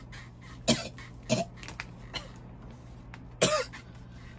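A woman coughing in short harsh fits, about four coughs a second or so apart, with a raspy throat-clearing tail on the last. Her throat is sore and burning from smoking.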